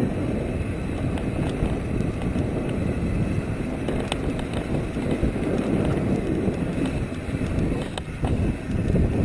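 Mountain bike rolling downhill over a dirt and gravel trail: a steady low rumble of tyres and wind buffeting the microphone, with a couple of sharp rattles from the bike, one about midway and one near the end.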